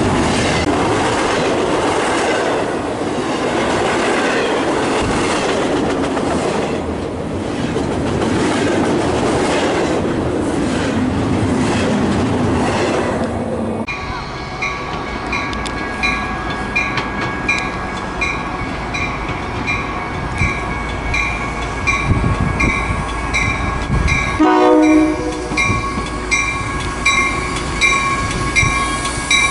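Double-stack container train passing close by, its wheels clattering and rumbling over the rails. About halfway through the sound cuts to a Metra bilevel commuter train pulling in, with grade-crossing bells ringing in a steady pulse and one short blast of the train's horn near the end.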